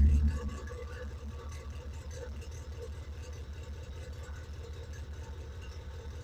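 An engine idling steadily, a low rumble with a fast, even pulse.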